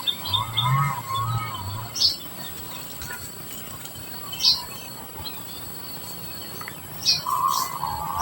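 Society finches chirping: single short, high chirps about every two seconds, with softer warbling sounds in the first two seconds and again near the end.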